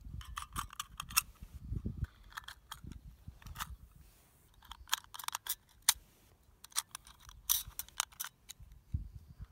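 7.62x39 cartridges being pressed into the CZ527's detachable steel box magazine: a series of irregular metallic clicks and snaps as each round goes in, with some low rumble from handling.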